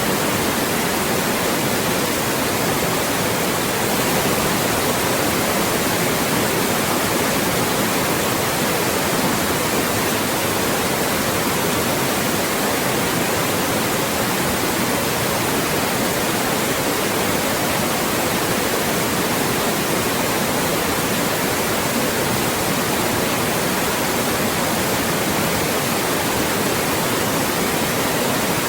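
Loud, steady white noise: an even, unbroken hiss across the whole range, with no change in level.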